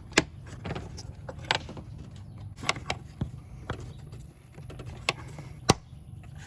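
The clips of an engine air filter housing being snapped back into position, making several sharp clicks and snaps at uneven intervals. The loudest comes a little after five and a half seconds.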